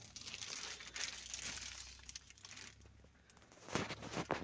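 Rustling handling noise, with a few sharp clicks and knocks near the end, as the plastic fuse box cover is held and turned in the hand.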